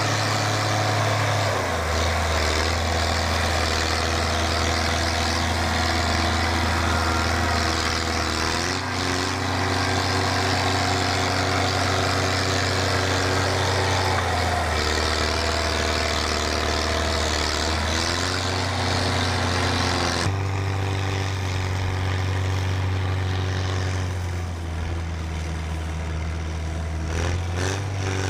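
PistenBully snowcat's diesel engine running as the machine works the snow, its pitch stepping down and up every few seconds as the engine speed changes.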